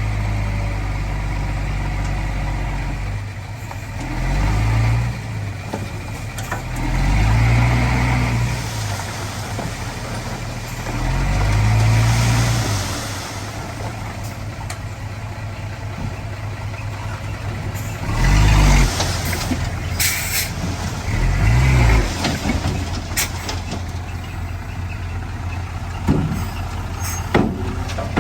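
Heavy diesel earthmoving machinery running steadily, revving up in about five surges of a second or two each. A few sharp knocks are heard, two of them near the end.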